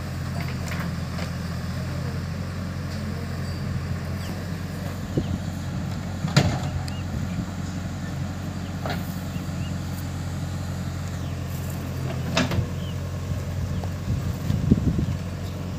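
Diesel engines running steadily: the Mahindra 575 DI tractor idling close by and the JCB 3DX backhoe loader working its digging arm. Three sharp knocks from the backhoe's bucket and arm stand out, about six, nine and twelve seconds in.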